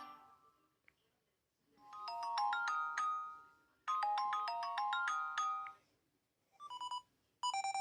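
LG K22 smartphone's built-in ringtone and notification tones playing from its speaker. A short, bright chiming melody sounds twice, about two seconds each time. Then a different tone of quick, clipped beeps starts near the end.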